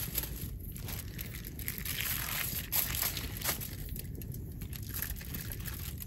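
Aluminium foil and plastic wrap crinkling and rustling as a raw whole chicken is handled and rubbed on them, in irregular crackles busiest around the middle. A steady low rumble runs underneath.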